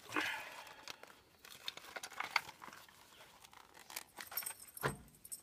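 Scattered light clicks, taps and rustling from hand tools and small metal parts being handled, with a duller knock near the end.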